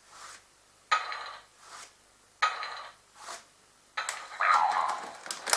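A Harry Potter Monster Book of Monsters prop box being worked open by hand: a repeated scraping clatter about every second and a half, then a quick run of clicks near the end as it comes open.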